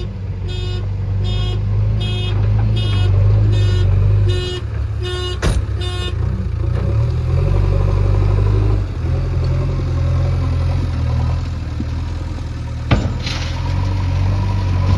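Heavy diesel engine of earthmoving machinery running steadily, with a reversing alarm beeping about one and a half times a second until about six seconds in. There are two sharp metallic knocks, one about five seconds in and a louder one near the end.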